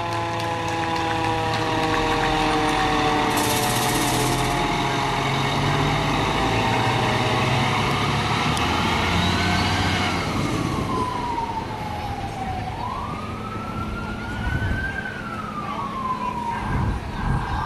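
Fire engine sirens as the trucks pass: a siren tone sliding slowly down, then a siren wailing up and down twice, over the low rumble of the trucks' engines. A short hiss about four seconds in.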